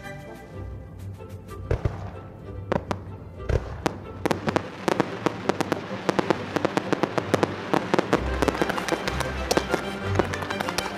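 Aerial fireworks bursting: a few separate bangs in the first four seconds, then a fast, dense run of bangs and crackles, over background music.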